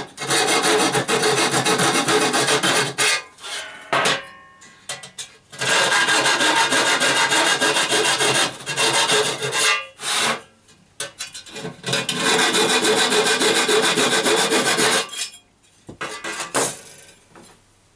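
A hand tool rasping and scraping against the metal panels of an R2-D2 dome, in three long spells of a few seconds each with short pauses between them, followed by a few brief lighter scrapes near the end.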